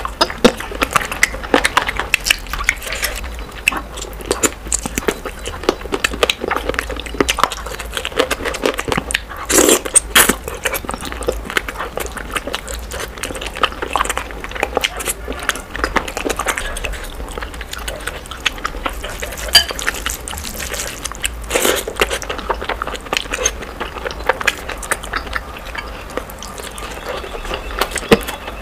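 Close-miked mukbang eating sounds sped up to double speed: rapid chewing, lip smacking and crunching as rice, curry and fried meat are eaten by hand, heard as a dense, quick run of wet clicks and crackles.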